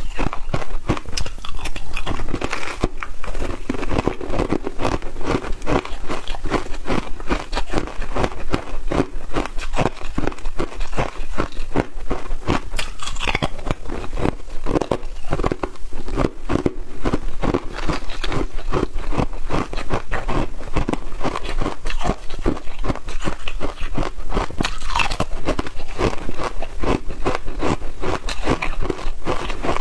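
Hard ice being bitten and chewed close to a clip-on microphone: a continuous run of sharp crunches and cracks in quick succession as the ice breaks between the teeth.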